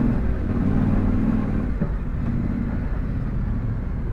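Yamaha Ténéré 700's parallel-twin engine running at low, steady revs.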